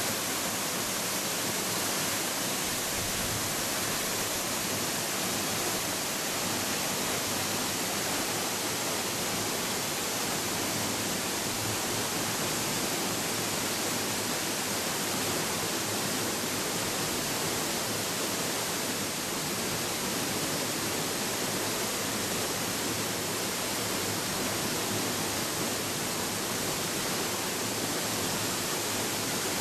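Waterfall pouring into its plunge pool: a steady, unbroken roar of falling water.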